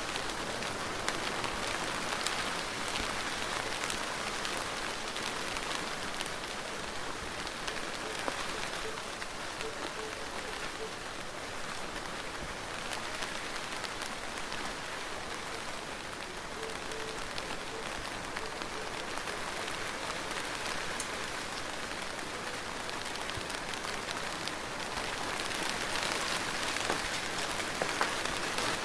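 Steady rain falling, a continuous hiss with scattered individual drop ticks, swelling a little near the end.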